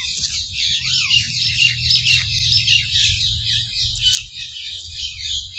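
Many birds chirping and calling at once, a dense, continuous chorus of short high-pitched notes, over a steady low rumble.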